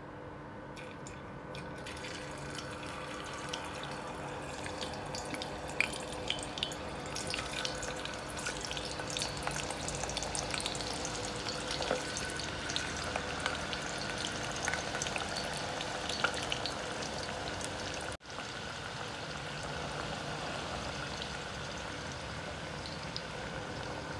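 Potato sticks deep-frying in hot oil in a stainless steel pot, a steady bubbling sizzle with many sharp crackles and pops that starts about a second in as the raw fries go into the oil.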